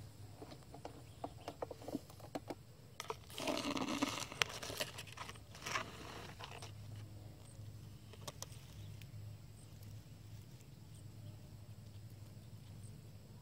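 Dry grass rustling and crackling close by, loudest for about a second from three seconds in and again briefly near six seconds, with scattered small clicks between.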